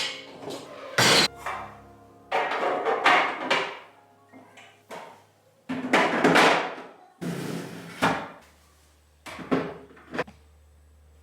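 Food storage containers and jars being handled and set into a refrigerator: a run of irregular knocks, clunks and scraping sounds with short pauses, and a few light clicks near the end.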